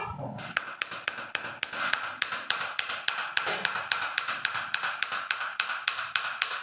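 Steady rhythmic tapping, about three light taps a second, evenly spaced over a faint hiss.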